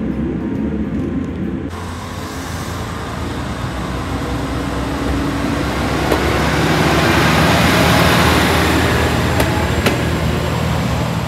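Isumi Railway diesel railcar pulling away from the platform and passing close by, its engine drone and running noise growing louder to a peak about eight seconds in and then easing, with a few sharp clicks.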